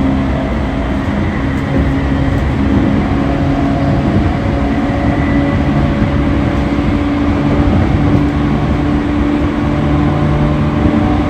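E231-1000 series electric train car running steadily along the line: an even rumble with several held humming tones laid over it. It is recorded as an abnormal noise (異音) from this car.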